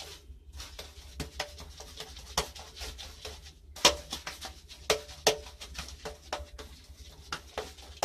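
Paintbrush laying vinyl silk emulsion onto a wall, heard as irregular taps and clicks from the brush strokes. A few louder knocks come about a second and a half in, at about four seconds, and around five seconds.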